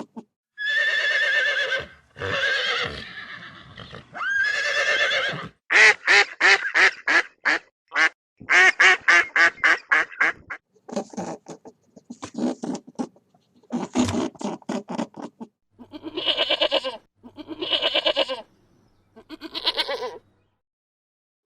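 Farm animal calls, a dozen or so one after another. Some are held for a second or more, and a run in the middle shakes in quick pulses.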